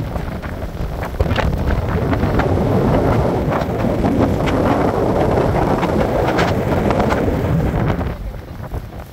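Strong wind buffeting the microphone, a loud, steady rushing that eases off about eight seconds in.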